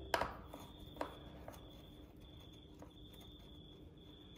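A few small clicks and ticks of a screwdriver working the screws of a garage door opener's control box, the sharpest just after the start and another about a second in. A faint steady high whine runs underneath.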